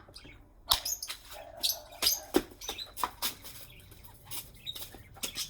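Pet birds chirping briefly among a scatter of short clicks and knocks, the sounds of birds moving about and of a bowl and cage being handled.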